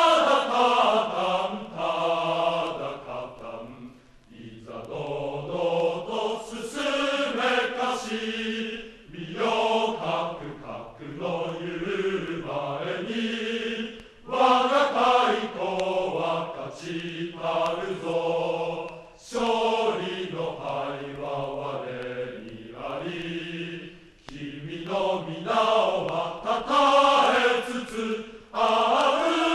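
A group of men singing a Japanese school song together, in phrases of about five seconds with short breaks for breath between them.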